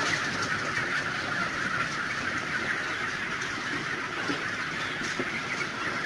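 A large flock of six-week-old broiler breeder chicks peeping in a dense, steady chorus. The birds are hungry, fed only once a day.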